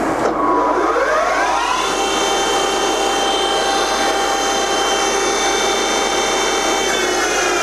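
Wroclaw TUR-50 lathe's geared headstock running up to its top spindle speed of 1800 rpm: a whine that rises over the first two seconds, holds steady, then starts to fall near the end as the spindle slows. Some gear noise is heard, which the seller reckons is nothing major.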